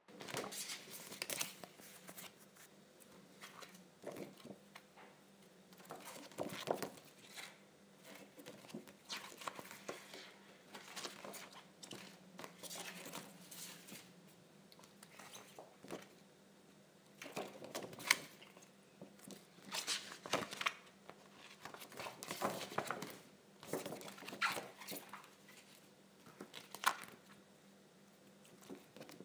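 Clear plastic file folders rustling and crinkling as they are handled, lifted and laid down, in irregular bursts with a few sharper clicks.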